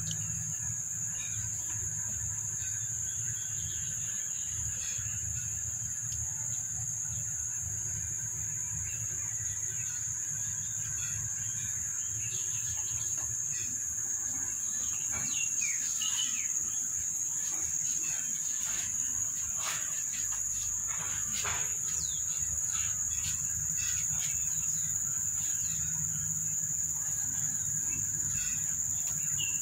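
A steady, high-pitched insect drone, with short chirps and clicks scattered through the middle.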